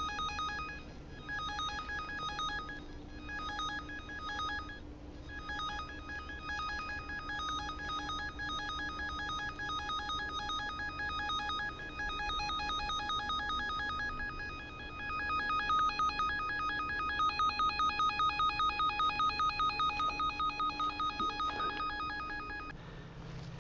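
Handheld cable-locator receiver sounding a steady electronic tone of several fixed pitches while tracing a buried line. The tone grows louder about two-thirds of the way through, then beats in quick pulses before cutting off near the end.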